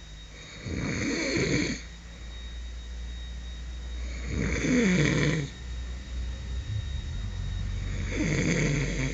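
A man snoring in his sleep: three long snores, one every three and a half seconds or so.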